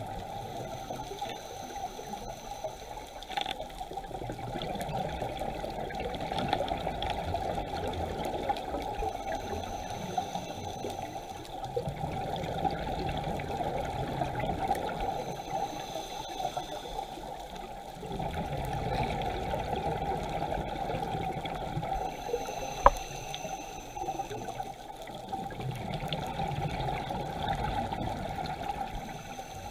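Scuba diver breathing underwater through a regulator: a hiss on each inhale, then a rush of exhaled bubbles, repeating every several seconds. One sharp click stands out about two-thirds of the way through.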